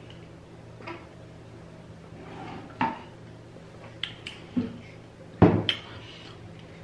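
Dishes and cutlery clinking and knocking a few times, with one louder knock about five and a half seconds in, over a faint steady hum.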